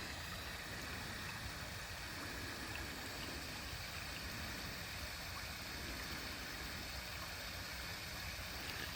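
Small stream of water running steadily beneath a bridge, a faint, even rush with no break or change.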